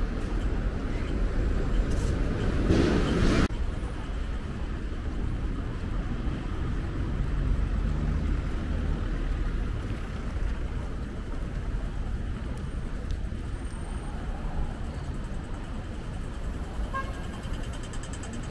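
City traffic: a vehicle rushes past close by, loudest about three seconds in, and the sound drops off abruptly soon after. Then a steady low rumble of traffic goes on.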